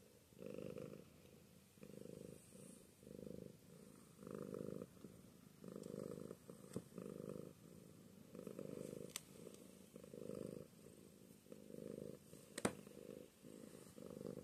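Domestic cat purring contentedly while being stroked: a soft purr that swells and fades with each breath, about once a second. A few sharp clicks cut in, the loudest near the end.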